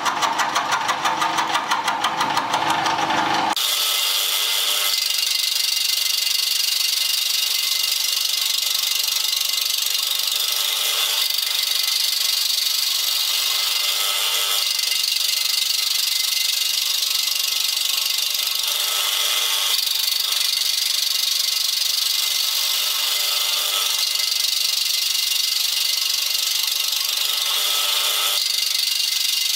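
Milling machine running while cutting metal, a loud steady mechanical noise with a fast throb. About three and a half seconds in the low throb cuts off suddenly and a thinner, hissy running noise carries on, its tone shifting every few seconds.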